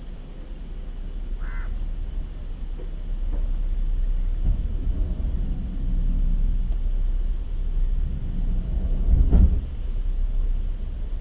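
A low, uneven outdoor rumble that swells from about four seconds in, with one short bird call about a second and a half in and a thump near the end.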